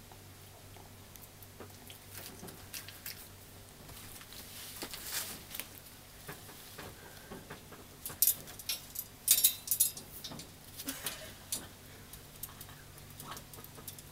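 Kinkajous clambering in a wire cage: claws scratching and gripping the wire mesh, with scattered clicks, rattles and rustles. The loudest cluster of sharp clicks and rattles comes about eight to ten seconds in.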